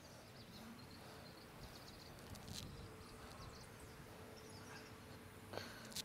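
Near silence: faint outdoor background with a few faint short high chirps, a faint steady hum through the middle and a soft tick near the end.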